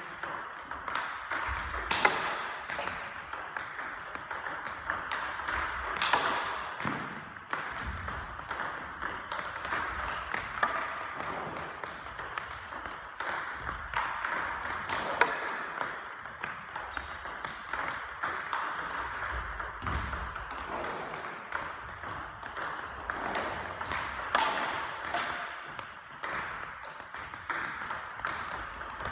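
Table tennis multiball drill: a fast, continuous stream of ping-pong balls clicking off rubber paddles and bouncing on the table, with a few louder hits now and then.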